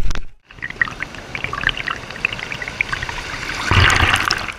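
Sea water sloshing and splashing around a camera held right at the water's surface, full of small bubbling and trickling sounds, with a louder wash of water near the end.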